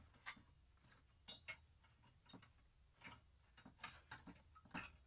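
Faint, irregular metal clicks and clinks of small hardware being handled as the adjustment screws and springs come out of a motorcycle headlight's mounting ring.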